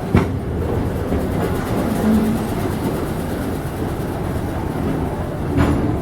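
Train rolling along the track with a steady rumble. Wheels knock sharply over rail joints twice, once at the start and once near the end.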